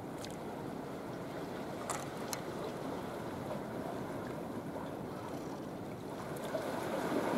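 Steady wash of harbour water with wind on the microphone, growing a little louder near the end, with a couple of faint clicks about two seconds in.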